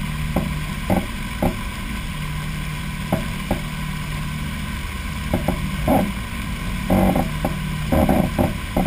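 Knocks and bumps carried through the float-mounted camera as a person moves about the Aircam and climbs up onto it, heaviest and most frequent over the last few seconds, over a steady hiss and low hum.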